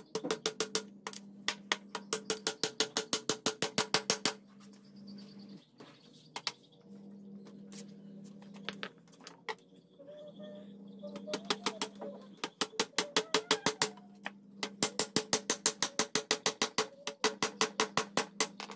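Hammer driving nails into a wooden frame in runs of quick light strikes, about six a second, with pauses between the runs.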